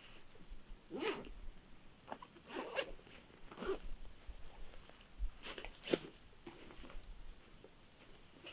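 Backpack zipper pulled in several short strokes, with the rustle of the pack's fabric as it is handled.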